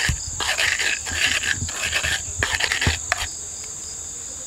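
A steady, high-pitched chirring of insects runs throughout. Over it, for the first three seconds, comes an irregular rustle and crackle of fruit being handled and torn open by hand, which stops about three seconds in.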